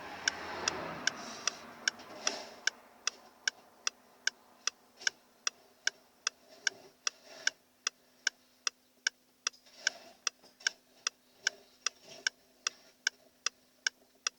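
Steady, even clicking of a car's indicator relay, about three clicks a second, as from hazard lights left on. A brief rushing noise in the first couple of seconds.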